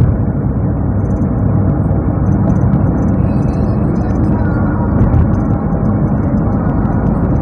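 Honda Civic Reborn on the move: a steady rumble of tyre, road and engine noise.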